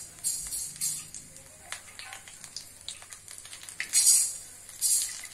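Gram-flour-battered green chillies (mirchi bajji) deep-frying in hot oil in a kadai, sizzling with a steady crackle of small pops. Louder bursts of hiss come near the start, about four seconds in (the loudest) and again about a second later.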